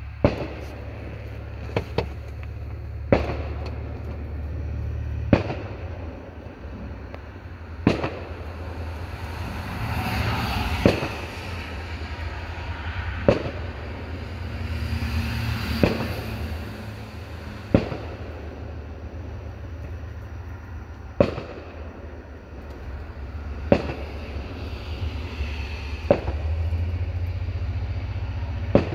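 Fireworks going off: about fourteen sharp bangs, one every two to three seconds, over a steady low rumble, with a brief hissing wash rising twice between the bangs.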